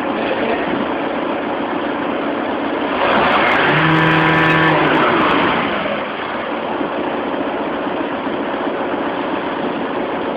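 Skoda Fabia engine idling, revved once about three seconds in, held for a couple of seconds, then dropping back to idle.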